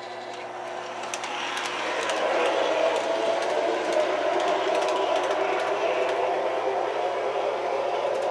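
Model PCC streetcar (MTH Protosound-3, O gauge) starting off and running on three-rail track: motor whir and wheel noise that builds over the first two seconds, then runs steadily with a few light clicks.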